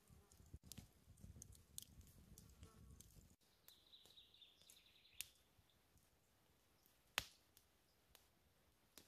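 Quiet outdoor ambience, near silence, with a low rumble that cuts off about three seconds in, a faint high whine lasting about a second, and a few sharp clicks, the loudest one about seven seconds in.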